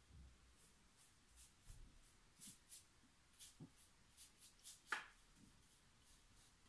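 Faint scratchy strokes of a paintbrush working paint onto canvas, a dozen or so short dabs, with one louder tap about five seconds in.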